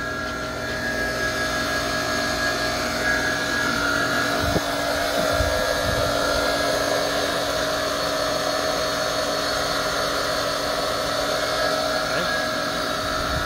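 Mokon Iceman heater/chiller running with its refrigeration compressor just started on top of the already-running supply pump. It makes a steady mechanical hum with several steady tones over a hiss that fills in and grows a little louder over the first second or two. There are a couple of dull thumps about four and a half and five and a half seconds in.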